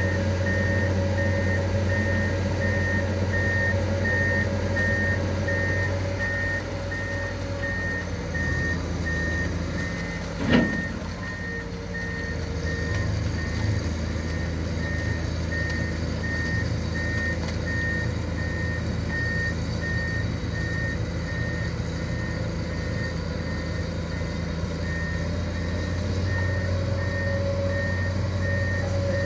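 Komatsu amphibious excavator's diesel engine running steadily while its travel alarm beeps about twice a second as the machine tracks through swamp mud. One sharp, loud knock about ten seconds in.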